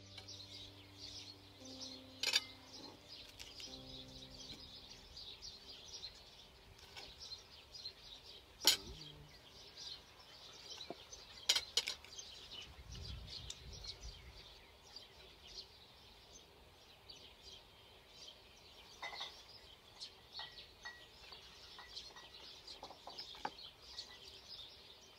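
Small birds chirping and twittering without a break, with a music track dying away in the first few seconds. A few sharp clicks or knocks cut through, the loudest about a third of the way in.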